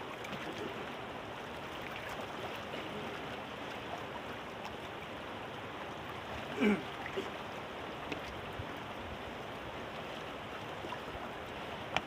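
Steady rush of a fast-flowing mountain river. About two-thirds of the way through, a short sound drops in pitch, and a brief click comes near the end.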